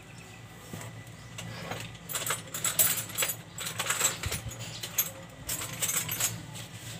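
Metal hand tools clinking and rattling as they are handled and picked out, a busy run of sharp clinks starting about two seconds in.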